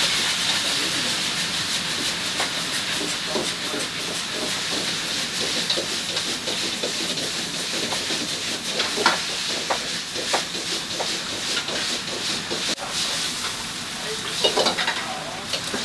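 Busy restaurant kitchen: a steady cooking hiss with frequent clinks and knocks of metal utensils and pans, one sharper knock past the middle and a flurry of clatter near the end.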